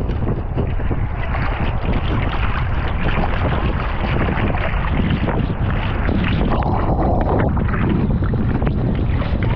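Wind buffeting the microphone, heavy and rumbling, with water splashing and sloshing against a longboard surfboard as it is paddled prone through choppy sea.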